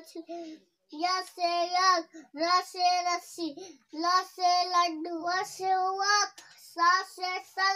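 A young child chanting in a sing-song voice, reciting from a Hindi alphabet chart in drawn-out phrases broken by short pauses.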